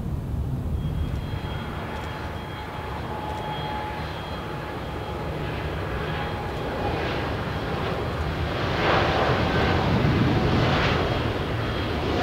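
Jet airliner's engines at takeoff power, a steady high whine over a deep rumble that grows louder toward the end.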